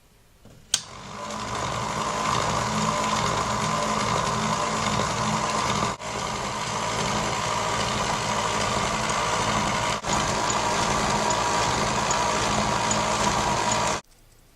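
Jolux Electric 600 toy typewriter's electric motor switched on with a click, running with a steady hum, dipping briefly twice, then cutting off suddenly.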